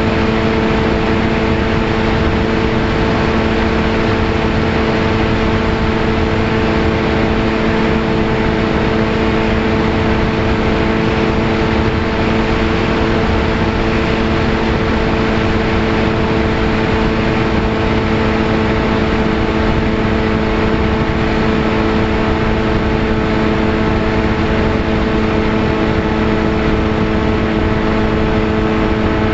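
Electric motor and propeller of a VAS Chimera FPV airplane running at a steady cruise, heard from the onboard camera as a constant droning hum that holds one pitch, over heavy wind rush on the microphone.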